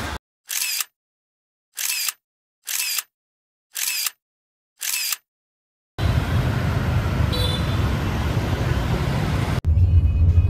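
Five camera-shutter clicks over otherwise dead silence, spaced about a second apart, like a shutter sound effect laid over photos. About six seconds in, busy street traffic noise of passing motorbikes takes over, and near the end a steady low rumble from inside a moving car.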